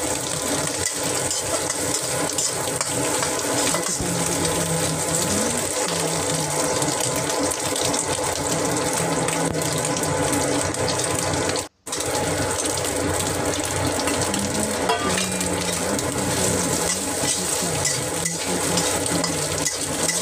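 Cashew nuts and chicken frying in oil in a wok, stirred with a spatula: a steady sizzling hiss with light scrapes and clicks. The sound cuts out briefly a little past halfway.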